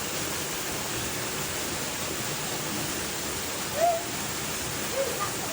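Waterfall rushing steadily into a pool. Two brief high calls stand out over it, the louder about four seconds in.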